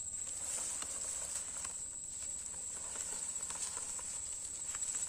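Irregular crackling and rustling of dry sugarcane leaves as a loaded plastic toy dump truck is dragged over them on a string and a child's feet tread through them. A steady high insect drone runs behind.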